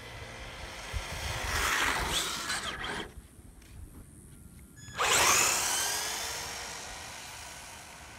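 Electric motor whine of a Traxxas RC car on asphalt. It swells as the car comes close, then cuts off abruptly about three seconds in. About five seconds in a car takes off close by with a loud whine that falls in pitch and fades as it drives away.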